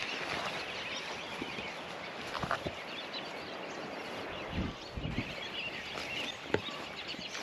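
Pigs nosing and chewing at whole pumpkins on grass, with a few short low grunts or knocks about halfway through over a steady outdoor background.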